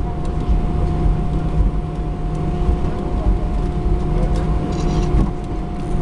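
Airbus A320 cabin noise while the airliner rolls on the ground after landing: a steady low rumble from the wheels and idling engines, with a constant hum.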